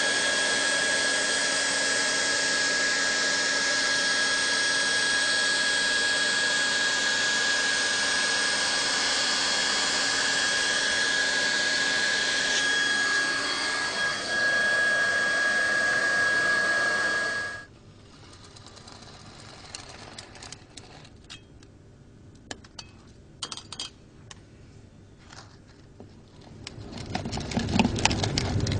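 Hot-air plastic welding gun running steadily: a loud, even blowing hiss with a constant high whine from its blower. It cuts off abruptly, leaving quiet scattered clicks and handling knocks, and a low rumble with knocks starts near the end.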